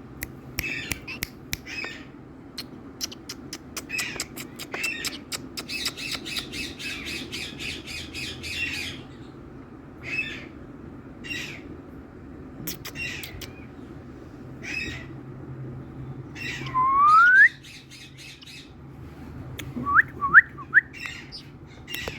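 Indian ringneck parakeet calling: a run of short squawks and clicking chatter, then a loud rising whistle about seventeen seconds in, and three short rising whistles near the end.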